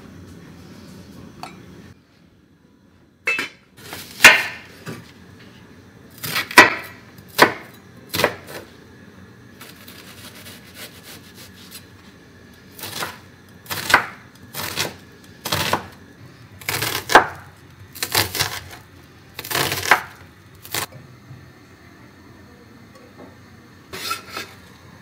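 Large kitchen knife cutting peeled potatoes on a wooden chopping board: a long run of separate sharp knocks at uneven spacing, starting about three seconds in.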